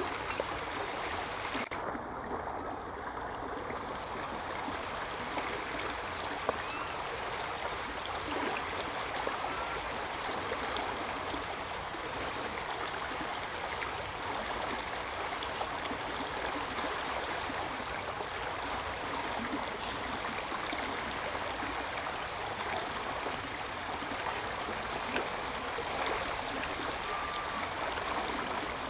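Steady rushing of running water, like a stream, holding an even level throughout.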